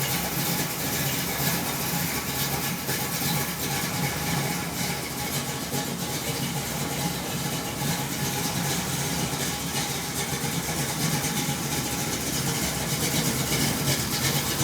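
1980 Chevrolet C10's engine, fitted with a Comp Cams Thumpr 279 camshaft, idling steadily with a slightly pulsing, lopey rumble.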